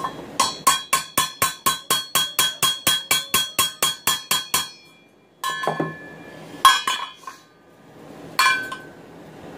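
Quick, even hammer blows on steel, about five a second for some four seconds, each with a bright metallic ring: nail rivets in a steel frying pan's hand-forged handle being peened over on the anvil. Then three single metal clinks.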